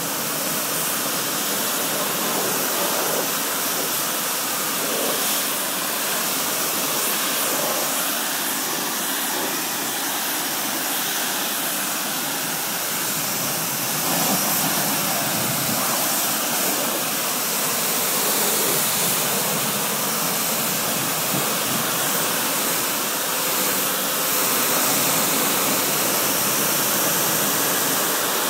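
Steady hiss of water spraying from a nozzle onto a car's waxed paintwork.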